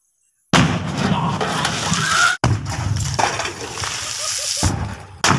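Sutli bombs (jute-string firecrackers) wrapped in polythene and sunk in water-filled drums exploding: a sudden loud blast about half a second in, then the splash and patter of water thrown up and falling back. The sound breaks off and starts again abruptly twice.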